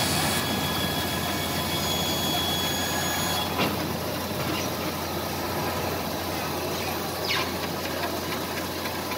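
CNC band saw running with a steady mechanical noise and hum while its automatic carriage feeds timber toward the blade. There is a single sharp click about three and a half seconds in.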